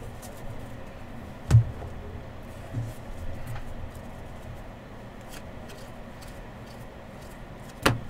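A stack of 2020 Panini Contenders football trading cards being handled and sorted: rustling and light clicks of card stock, with a sharp tap about a second and a half in and another near the end.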